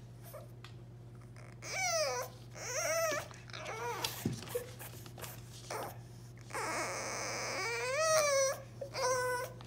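French bulldog puppy whining and crying in high, wavering, baby-like cries: three short cries about two seconds in, then more near the end. A steady hiss fills a second or so in between.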